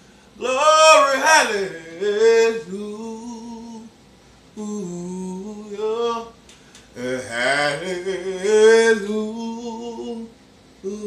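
A man singing a gospel melody unaccompanied, in phrases of long held, sliding notes with short pauses for breath between them.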